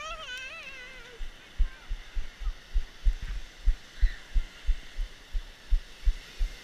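Dull low thumps about three times a second: handling noise as the GoPro jolts with each step of the person carrying it over the sand, over a faint wash of surf. A child's high voice calls out in the first second.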